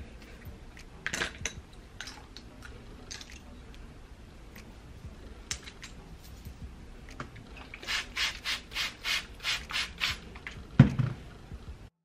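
A knockoff Denman-style brush rasping through curly hair in short strokes, with a quick run of about nine strokes, roughly three a second, near the end. A single thump follows.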